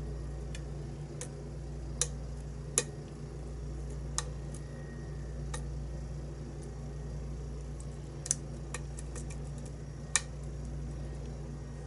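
Lock pick clicking against the pins inside a pin-tumbler challenge lock: scattered single sharp metal clicks, with a quick run of several about two-thirds of the way through, as the pins are worked and give almost no feedback.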